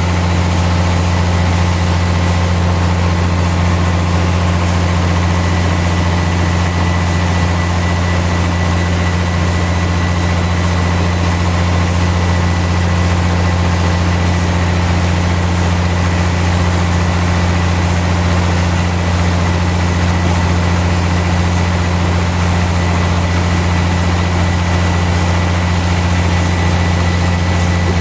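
Sawmill machinery running steadily: a loud, even, deep engine hum with a thin high whine, with no change in load.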